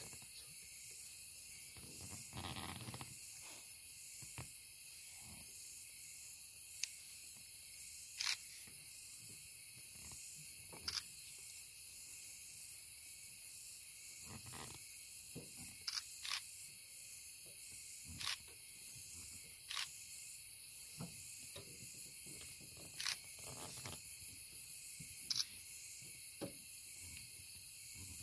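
Night insect chorus: a steady high hiss with a high-pitched chirp repeating evenly just under twice a second, over scattered faint clicks and a couple of brief low rustles.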